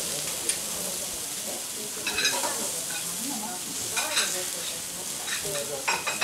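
Wagyu beef fillet and vegetables sizzling on a hot teppanyaki steel griddle, a steady hiss. Short clusters of sharp metal clinks from a spatula and fork against the griddle come about two, four and six seconds in.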